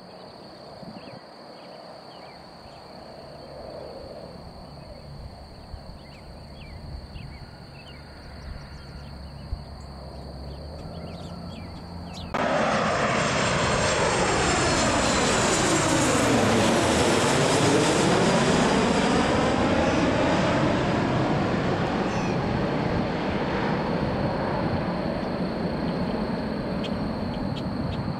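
Southwest Airlines Boeing 737 on final approach, its jet engines rumbling faintly at first, then loud as it passes low overhead with a whoosh that sweeps down and back up in pitch, then slowly fading as it moves off toward the runway.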